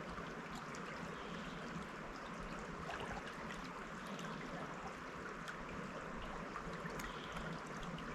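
Trout stream running, a steady rush of water with a few faint clicks.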